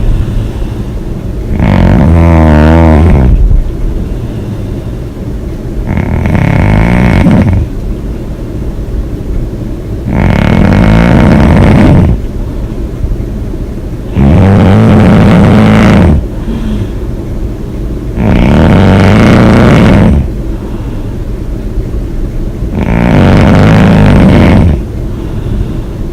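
A woman snoring loudly, six rattling snores, one about every four seconds.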